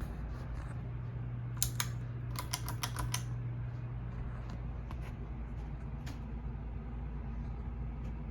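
Hunter Oakhurst II ceiling fan motor running slowly with a steady low hum, held back by a bad capacitor. A quick run of light clicks comes about two seconds in, with a few scattered single clicks after.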